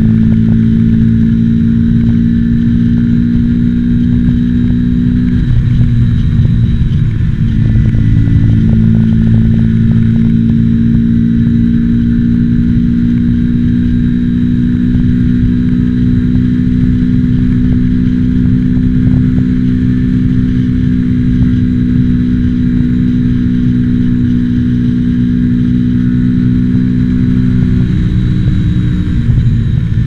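Mutt Akita motorcycle engine running at a steady cruising pitch. The pitch dips about five seconds in and picks back up about three seconds later, then dips slightly again near the end. Faint crackling clicks from the recording come through in the first part.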